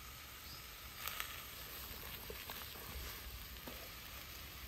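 Sliced onions and carrots frying in oil in a pan over a charcoal grill: a faint, steady sizzle, with one sharp click just after a second in.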